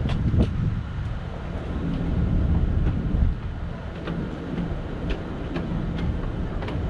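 Wind rumbling on the microphone over a low outdoor drone, with a few faint ticks scattered through.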